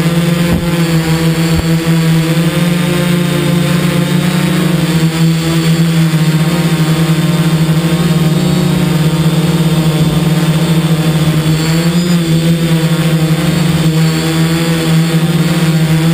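DJI F550 hexacopter's six electric motors and freshly balanced propellers humming steadily in flight, with a slight rise in pitch about twelve seconds in.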